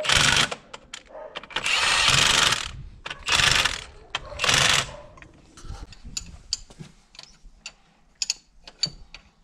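A power tool, drill-like, runs in four short bursts of about half a second to a second each in the first five seconds. Scattered light metallic clicks and taps follow, like hand tools working on metal.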